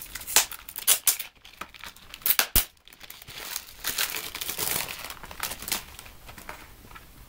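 Cellophane shrink-wrap being torn and peeled off a CD jewel case, crinkling and crackling, with a sharp click about two and a half seconds in. It then crumples in the hand for a second or so before it dies down.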